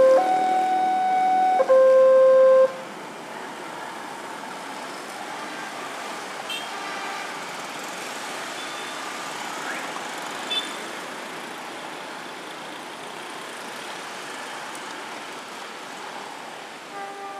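Railway level-crossing warning alarm alternating between a low and a high tone, about a second each, then stopping about two and a half seconds in as the train clears the crossing. Steady road traffic follows as motorcycles and cars move off, with a couple of short horn beeps and faint alarm tones returning near the end.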